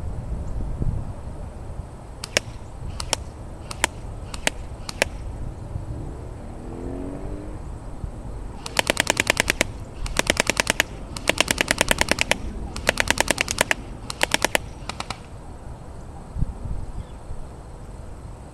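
Cybergun Thompson M1A1 airsoft gun firing: five single shots a little under a second apart, then about halfway through five short full-auto bursts of rapid, evenly spaced clicks. Low wind rumble on the microphone underneath.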